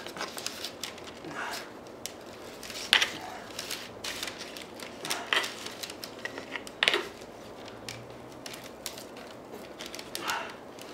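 Irregular clicks and scrapes of a wooden stick working inside a metal can to push out stiffening melted polyethylene, with a few louder knocks, about 3 s and 7 s in.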